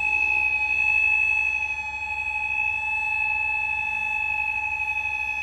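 A block of flats' central fire alarm sounding with a continuous high-pitched electronic tone, steady and unbroken.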